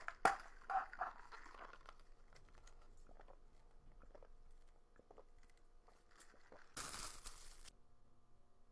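Close eating sounds of KFC fried chicken: a loud crunchy bite at the start, a few more crunches, then scattered soft crackles of chewing. Near the end comes a hiss-like burst of noise lasting about a second.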